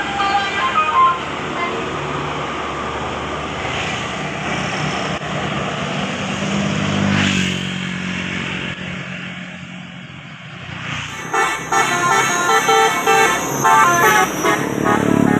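Road traffic with a bus engine swelling and fading as it passes. Near the end comes a quick rhythmic run of bright, multi-note telolet horn tones, a bus's musical multi-tone horn playing its tune.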